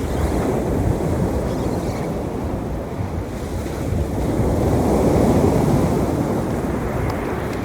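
Ocean surf washing onto the beach, with wind buffeting the microphone; the surf swells loudest about halfway through.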